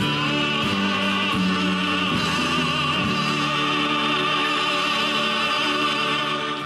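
Music: a singer holding a note with strong vibrato over steady low accompanying notes, stopping right at the end.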